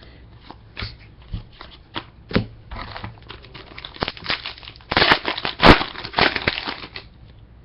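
A 2013 Prestige Football trading-card pack wrapper crinkling and being torn open, with scattered clicks and rustles of cards being handled. The loudest tearing and crinkling comes about five to six and a half seconds in.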